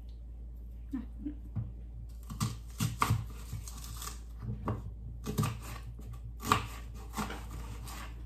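Kitchen knives cutting onion and cucumber on wooden chopping boards: irregular chops and taps of the blades on the wood, starting about a second in.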